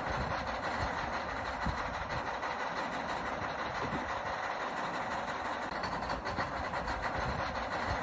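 Electric gear motors of RC toy construction vehicles whirring steadily, with no pauses or changes.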